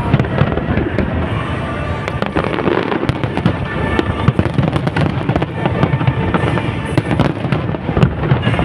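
Aerial fireworks display going off continuously, a dense stream of bangs and crackling over a heavy low rumble.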